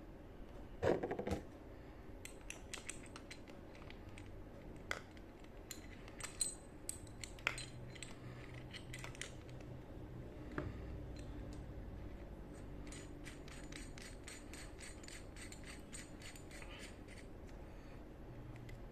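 Small metal parts of a motorcycle brake master cylinder clicking and clinking as they are handled, with a louder clatter about a second in and a quicker run of light ticks near the end.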